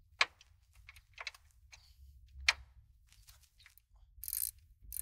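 18 mm wrench working the upper strut mount's top nuts: scattered metal clicks and clinks, then a short run of quick ratcheting clicks about four seconds in and again at the end.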